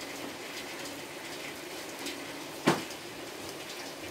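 Steady hiss of light rain falling as a shower tapers off, with one sharp tap about two and a half seconds in.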